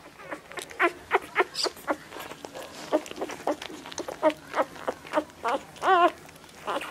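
Newborn Labrador puppies squeaking and whimpering as they jostle for their mother's teats: a quick run of short high squeaks, with one longer wavering whine about six seconds in.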